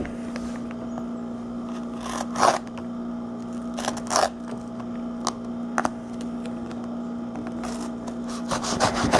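Knife blade slitting packing tape on a cardboard shipping box, in several short scraping strokes a second or two apart, with handling of the box. A steady low hum runs underneath.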